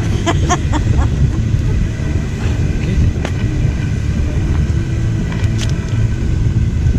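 Steady low rumble of wind buffeting the microphone, with a few sharp crackles from the wood campfire.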